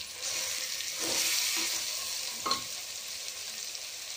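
Chicken and masala frying in an open pressure cooker, sizzling as it is stirred with a spatula; the sizzle is loudest in the first couple of seconds, and there is one short knock about two and a half seconds in.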